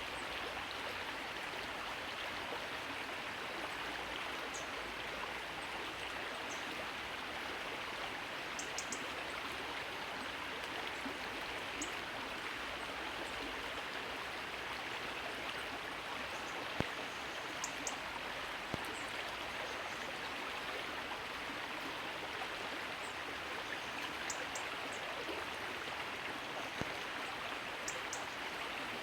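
Running water from a stream makes a steady rushing sound. Short, high bird calls sound now and then over it, some in quick pairs.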